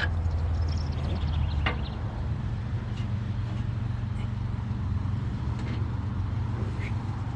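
Steady low rumble of wind buffeting the microphone, with a few faint metallic clinks of tools about two and three seconds in.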